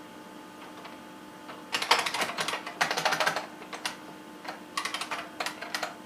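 Typing on a 1993 IBM Model M buckling-spring keyboard: quick runs of clacking keystrokes start a little under two seconds in, with short pauses between the runs.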